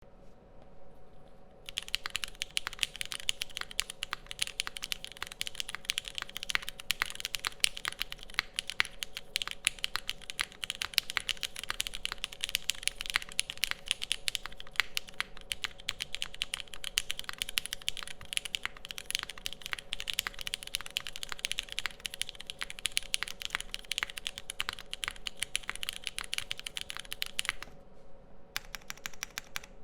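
Fast, continuous typing on a Keycult No. 2/65 mechanical keyboard with lubed Cherry MX Black Hyperglide linear switches, GMK keycaps and a full aluminum plate. The keystrokes start about two seconds in and break off briefly near the end.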